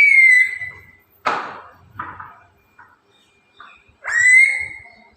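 Pet parrot whistling: two drawn-out whistles that rise and then hold steady, one at the start and another about four seconds in. A short harsh noisy burst comes about a second in.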